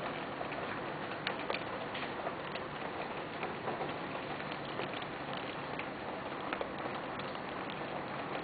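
Heavy rain falling steadily, an even hiss with scattered sharper ticks of individual drops.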